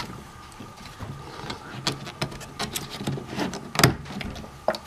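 Rubber caps being pressed and fitted into the hollow plastic base of a punching-bag stand: scattered plastic clicks and knocks over faint rubbing, the sharpest knock about four seconds in and another just before the end.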